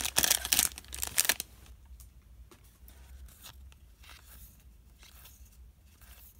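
A 2019 Bowman baseball card pack's crimped foil wrapper is torn open and crinkled for about the first second and a half. Then it goes quiet, apart from faint soft scrapes as the cards are handled.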